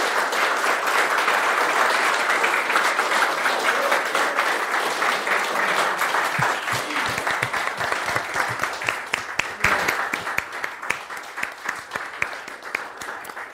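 Audience applauding. The applause is dense at first, thins into scattered individual claps over the last few seconds, and fades out near the end.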